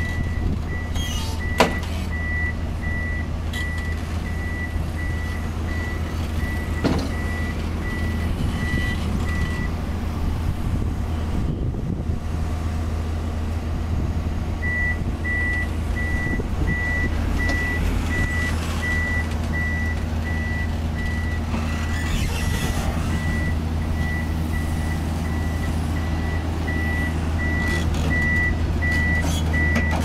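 Komatsu PC200-8 crawler excavator's diesel engine running steadily as it tracks backward down a truck's loading ramps, its travel alarm beeping about twice a second; the beeping stops for a few seconds midway while the machine pauses, then resumes. A sharp metallic knock sounds about a second and a half in.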